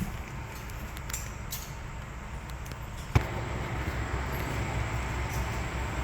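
A car engine's low rumble, with one sharp click about three seconds in, after which the rumble is louder and steadier.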